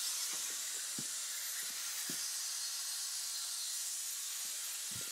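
Shop-air venturi vacuum bleeder hissing steadily as it draws hydraulic fluid out of the clutch slave cylinder through a clear hose, with a few faint small ticks.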